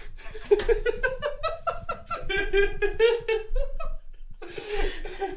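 Laughter after a punchline: a quick run of high-pitched laughs lasting about three seconds, ending in a breathy exhale near the end.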